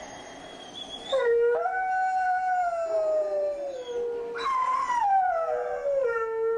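A dog recovering from surgery howls twice in long pitched calls, after a faint high whine in the first second. The first howl rises and then slowly sinks over about three seconds; the second starts higher, slides down and is held. The vet believed the dog was dysphoric from too many opioids rather than in pain.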